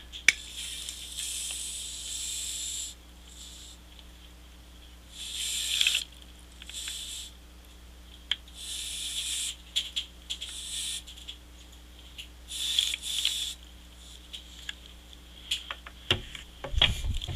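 Soda siphon hissing in short spurts as it sprays carbonated water from its nozzle into the compartments of an ice cube tray. There are about eight spurts, the first and longest lasting a couple of seconds and the rest about a second or less, with small clicks of the lever between them.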